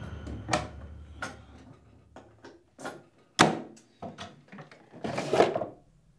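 Rummaging in a kitchen: a string of knocks and clicks as things are moved on the counter and in the cupboards, one sharp knock louder than the rest, then a painted wooden drawer sliding open with a scrape near the end.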